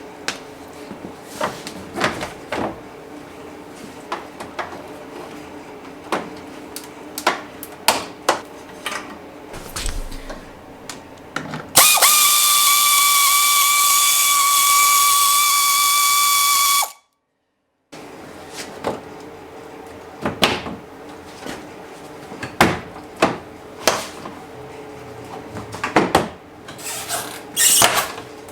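Scattered clicks and clatter of parts being handled, with a power drill running steadily for about five seconds past the middle, a high whine over a hiss that cuts off abruptly.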